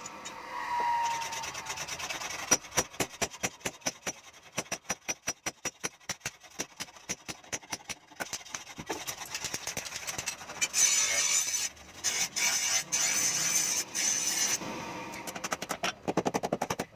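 Hand hammer striking red-hot steel on a steel post anvil: a steady run of blows, about three a second, forging a knife blade. Partway through, a few seconds of loud hissing noise interrupt the blows.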